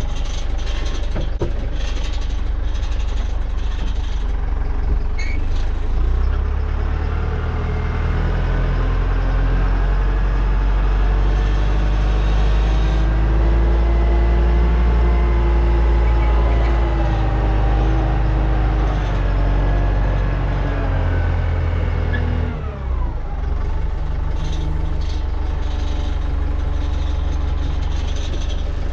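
Tractor engine running, heard from inside the cab. Its pitch climbs slowly through the middle stretch, falls away sharply a little past twenty seconds in, then settles to a lower, steady run.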